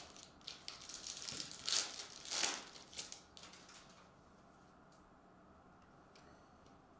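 Foil wrapper of a Panini Mosaic soccer card pack being torn open and crinkled: a run of crackling rips over the first three seconds, the loudest about two seconds in.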